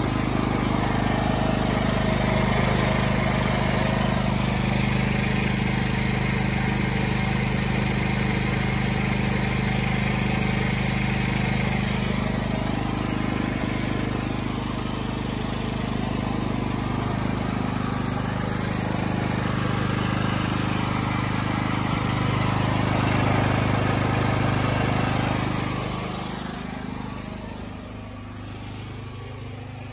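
UST 5500-watt portable generator's engine running steadily, growing fainter near the end.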